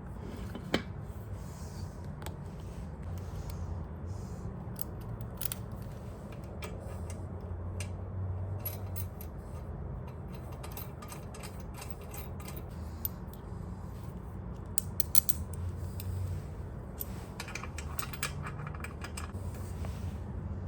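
Light metallic clicks, ticks and scrapes of table saw parts being worked by hand, coming in irregular clusters over a steady low hum.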